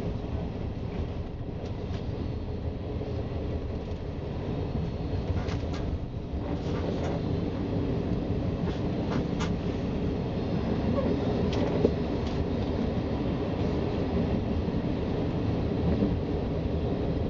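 Commuter train heard from inside the carriage while moving: a steady low rumble of wheels on rails with scattered short clicks, growing slightly louder about six seconds in.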